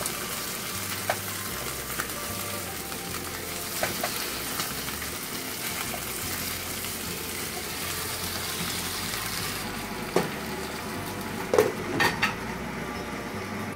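Opah fillets sizzling in oil in a frying pan while they are turned with wooden utensils. The sizzle grows quieter near the end, when a few knocks and clinks come as a glass lid goes on the pan.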